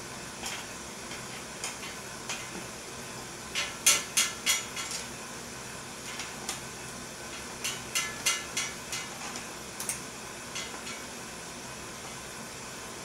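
Sharp metal clicks and clinks of a 14 mm wrench working the nut on a bicycle seat bracket, coming in short bursts of several clicks, the loudest bursts about four seconds in and about eight seconds in.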